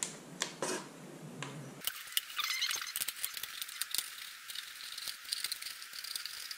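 A plastic bottle being cut through by hand, crinkling and crackling with many sharp clicks and snaps.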